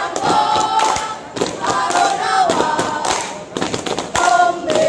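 A troupe of young scouts singing a Pramuka yel-yel together, a rhythmic group chant-song broken by sharp hits in time.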